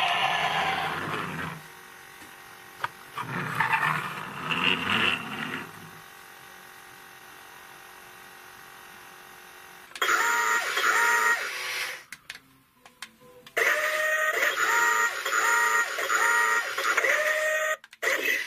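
Battery-operated toys playing electronic sound effects: a short burst of tones from the toy ambulance at the start and another a few seconds later, then from about ten seconds in a toy robot's repeating electronic beeps in a rhythmic pattern, with a brief break just before it.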